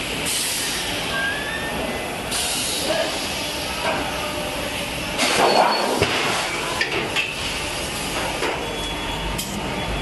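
Sheet-metal forming line for chest freezer shells running: a steady hiss with metal knocks and clinks scattered through, and a louder burst of noise about five to six seconds in.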